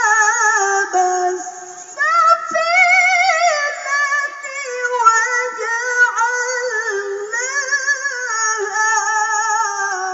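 A woman reciting the Quran in melodic tilawah style: long, ornamented held notes with a fast waver. A short phrase ends about a second and a half in, and after a breath one long phrase runs until shortly before the end.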